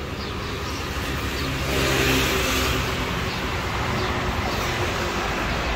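City street traffic: a motor vehicle passes close by, louder about two seconds in, over a steady low engine hum from the road.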